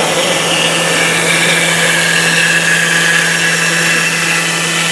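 The 10 kW HSD spindle of a 5-axis CNC router running at speed while its cutter mills the workpiece: a loud, steady machining noise with a constant low hum and a high whine that wavers slightly in pitch.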